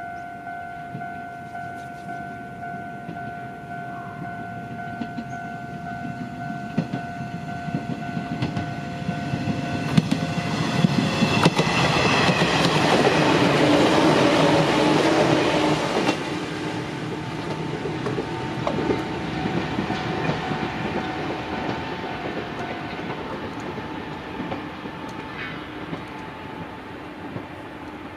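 Level-crossing alarm ringing steadily as an Izuhakone Railway Sunzu Line electric train approaches. The train then passes over the crossing, loudest a little under halfway through to just past the middle, and its running sound fades away afterwards.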